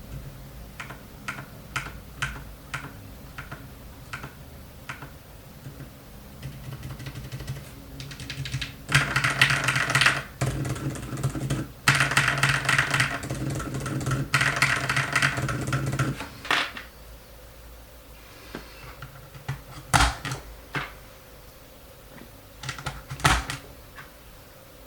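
Keys being typed on a Keychron K2 V2 mechanical keyboard fitted with Outemu Silent Lemon V3 switches. Single keystrokes come a second or so apart, then about nine seconds in a stretch of fast continuous typing begins that lasts some seven seconds. After that come scattered keystrokes, a couple of them louder.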